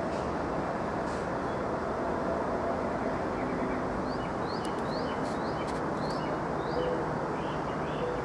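Steady low rumble of a freight train rolling away, mixed with highway traffic. From about halfway through, a bird calls in short rising chirps, about two a second.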